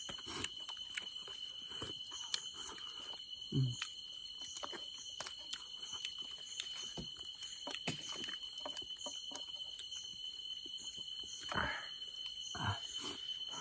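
Steady high-pitched trilling of night insects, with scattered sharp clicks and rustles of dry leaves and bamboo being handled.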